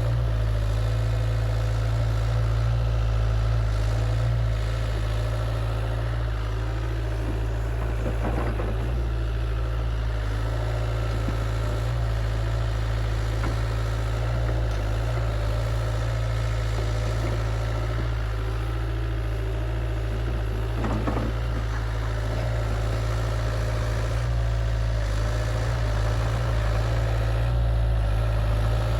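John Deere 60D excavator's diesel engine running steadily at about 80% throttle.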